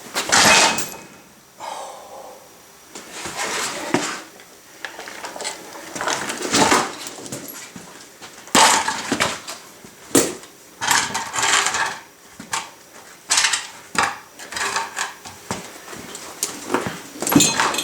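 Irregular metallic clanking and clattering, a dozen or so separate knocks and rattles, as tools and wheel hardware are handled during a tractor wheel-spacer installation.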